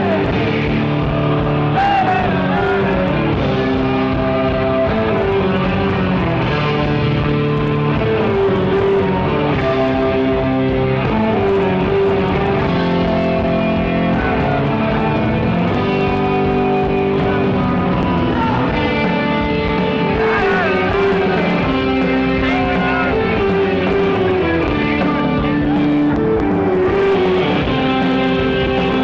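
Live hard rock band playing loud, with distorted electric guitar, bass and drums and singing at times, captured on a phone's microphone.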